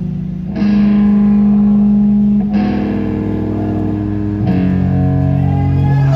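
Live rock band playing an instrumental passage, with electric guitar chords ringing out and a new chord struck about every two seconds.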